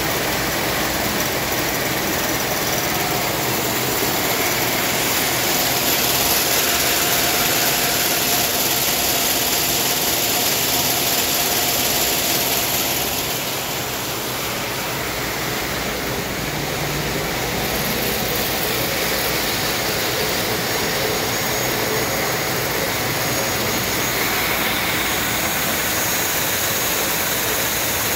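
Bobst folder-gluer running at production speed, carton blanks feeding through its belts and rollers: a steady, loud, even machine noise that drops a little for a few seconds around the middle.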